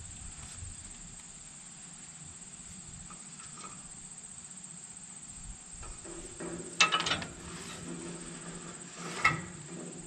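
Crickets chirring steadily, a continuous high-pitched trill. Near the end, a few sharp knocks and clatter as hydraulic hoses are handled at the tractor's rear couplers.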